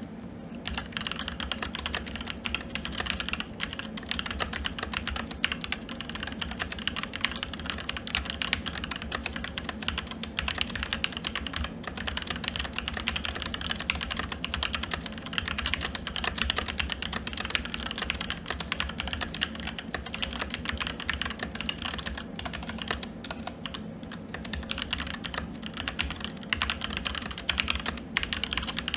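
Fast, continuous typing on a SteelSeries Apex 7 TKL mechanical keyboard with red linear switches: a dense, unbroken stream of keystroke clacks.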